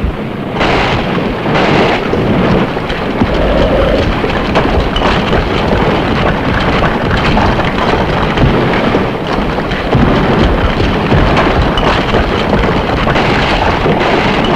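Showa-era tokusatsu sound effect: a continuous rumbling, crackling noise, like a storm or a long collapse, lasting about fourteen seconds between silences.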